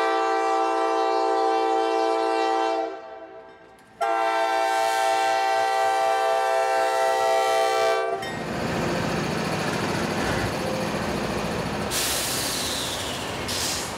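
A train's locomotive horn sounds two long blasts. The first is already sounding at the start and stops about three seconds in; the second runs from about four to eight seconds in. Then the train's steady running noise of wheels on rails fills the rest.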